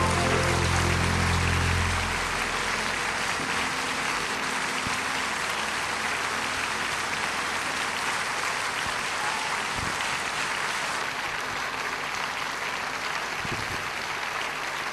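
Large concert audience applauding steadily. For about the first two seconds the band's final chord still rings under the applause, then it stops.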